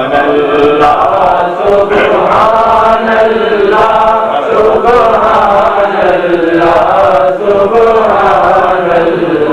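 A man singing a Punjabi naat, a devotional poem, through a microphone in long, drawn-out melodic phrases.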